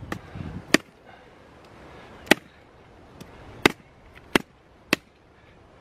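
Small hatchet chopping into a branch: five sharp blade strikes into the wood, unevenly spaced, the last three coming quicker.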